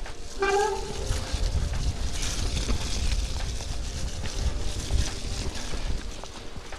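Mountain bike descending a wet forest trail: tyres rolling and the bike rattling over the ground, with wind buffeting the microphone. A short pitched squeal sounds once, about half a second in.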